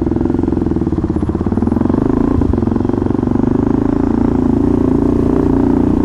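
KTM Duke 390's single-cylinder engine pulling away from a standstill under throttle, shifting from first into second gear partway through, then running steadily at low road speed.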